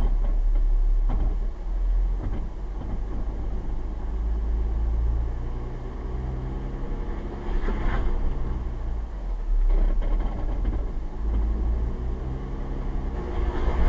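A Jeep Wrangler's engine idling, heard from inside the cab as a steady low rumble, with a few faint knocks and clicks now and then.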